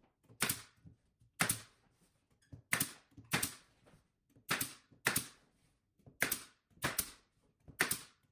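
Pneumatic nail gun firing about nine times, sharp shots often coming in pairs about half a second apart, as it drives nails through trim boards into the cabinet.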